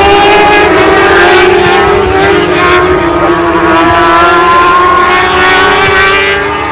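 Racing motorcycle engines at high revs, a loud continuous drone whose main tone eases slowly down in pitch while a higher tone rises in the middle.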